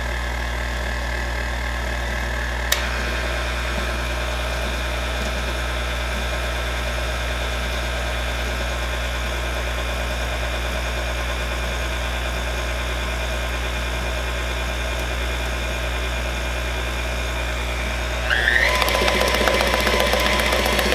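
KitchenAid Classic stand mixer running, its motor humming steadily as the flat beater churns gingerbread cake batter in a steel bowl, with a single click about three seconds in. Near the end it gets louder with a short rising whine, as the mixer is sped up once the batter has come together.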